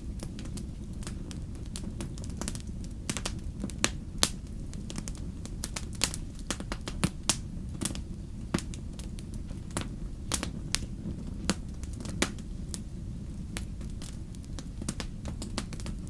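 Wood fire crackling: irregular sharp pops and snaps, several a second and some louder than others, over a steady low rumble of the flames.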